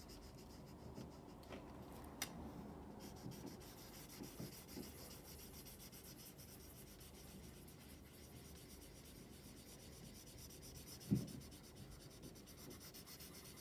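Felt-tip marker dragged over paper, colouring in a shape, faint throughout. A sharp click comes about two seconds in, and a short, louder thump a little after eleven seconds.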